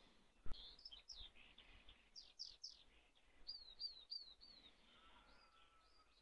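Faint birdsong from several small birds: short high chirps falling in pitch, including a quick run of four alike notes in the middle, and a thin whistle held for about a second near the end. A single sharp click about half a second in.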